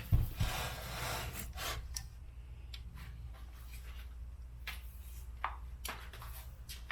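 Handling noise as a scroll saw is lifted down and set up: a knock right at the start, a couple of seconds of rubbing and scraping, then a few scattered clicks and taps.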